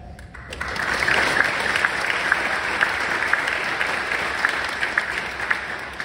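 Audience clapping: a dense patter of many hands that starts about half a second in and eases off near the end.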